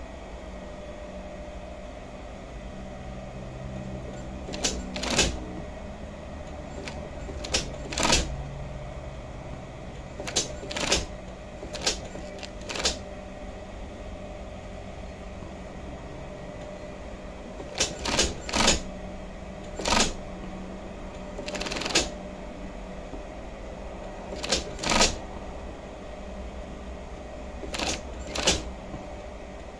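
Union Special 35800 feed-off-the-arm chainstitch machine sewing a denim seam slowly, in short clattering bursts of a few stitches at a time, about fifteen of them at uneven gaps, over the steady hum of its running motor.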